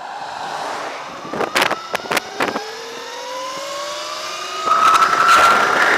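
Throne SRPNT electric motorbike's motor whining, rising steadily in pitch as it accelerates, with wind buffeting the microphone in several sharp gusts. Just before the end, the wind rush and whine jump louder and then hold steady.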